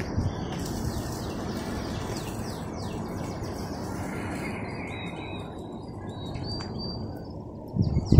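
Small birds chirping: runs of quick falling notes and, midway, a thin held whistle, over a steady low hiss of ambient noise. A few louder low thumps come in near the end.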